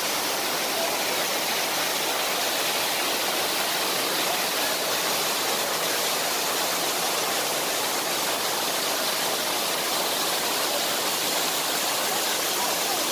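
Water rushing steadily as a waterfall and a stream cascade over rocks.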